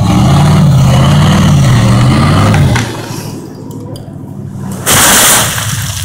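A truck engine revving hard under load, wavering in pitch, for the first two and a half seconds and then easing off. About five seconds in comes a short, loud crash as the felled tree and its branches hit the ground.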